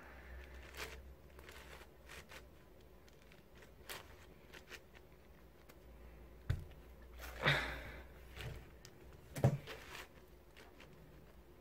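Faint, scattered clicks and rustles of a plastic 12x12 puzzle cube being handled and turned, with a few louder clacks in the second half over a low steady hum.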